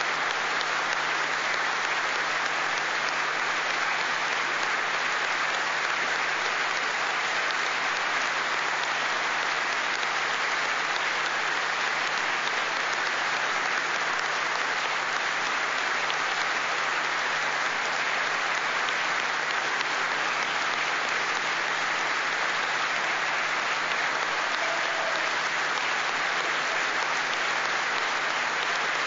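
A large crowd of parliament members applauding steadily without a break: a long standing ovation at the close of a speech.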